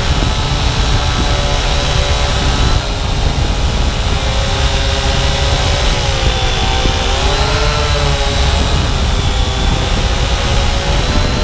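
Syma X8W quadcopter's motors and propellers whirring steadily in flight over a heavy low rumble of wind noise. The pitch dips and then climbs back about six to eight seconds in as the throttle changes.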